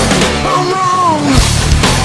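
Loud, heavy rock music with pounding drums and bass. About half a second in, the low end drops out briefly and a single bending, falling note sounds, then the full band comes back in.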